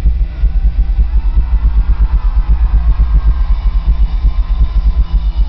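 Live rock band playing loud: a Yamaha drum kit pounded in a fast, even beat of kick drum and toms, with electric guitar noise ringing over it.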